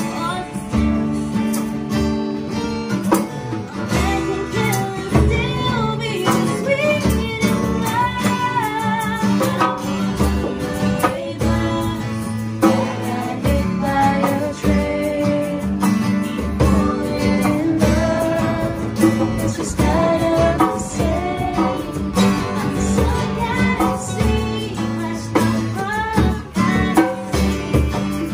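Two acoustic guitars strumming chords while two women sing a pop song together, with a hand drum keeping the beat.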